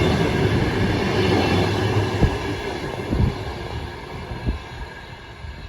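Train running past on the station tracks, its rumble fading steadily as it moves away, with a few low thumps along the way.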